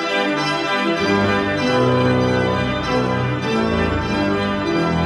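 Church organ playing sustained chords, with deeper bass notes coming in about a second in.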